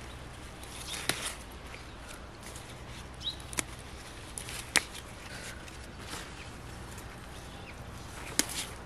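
Sorrel leaves being picked by hand: leaves rustling, with a few sharp snaps as stems are broken off.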